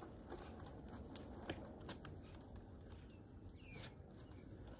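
Faint wet scrubbing of a soapy wash mitt on a car's side window and door, with scattered small clicks and patters over a low outdoor rumble. One short falling chirp comes about three and a half seconds in.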